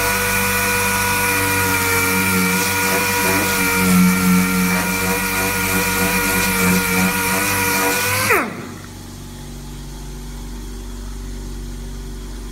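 Air-powered random orbital sander with self-vacuum running at full speed, a steady high whine with air hiss as it sands a rusty steel plate. About eight seconds in it is shut off and its pitch falls quickly as it spins down, leaving a low steady hum.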